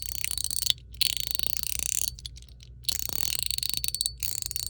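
Chenyu Guardian mechanical slider fidget made of PEI plastic, pushed back and forth about four times. Each stroke is a quick run of clicks as its ball bearings roll over the ball-shaped holes of the track.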